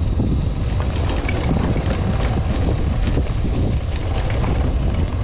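Motorcycle riding slowly over a rough, rocky dirt road: a low, steady engine rumble with wind buffeting the microphone, and scattered short clicks and knocks as the bike jolts over the ground.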